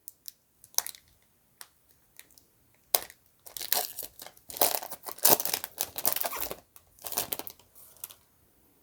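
Trading-card pack wrapper being torn open and crinkled by hand: a few sparse crackles at first, then a dense run of crinkling and tearing from about three seconds in, stopping shortly before the end.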